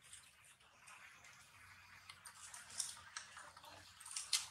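Baby long-tailed macaque chewing a piece of fruit: faint, irregular wet clicks and smacks of mouth and lips, with a sharper click near the end.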